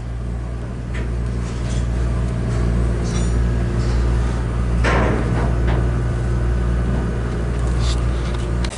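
Steady low mechanical hum with scattered metallic knocks and clanks, one louder scraping knock about five seconds in.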